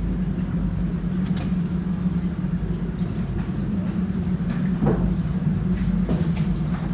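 A steady low hum with a rushing noise, broken by a few short knocks about a second in, near five seconds and near six seconds.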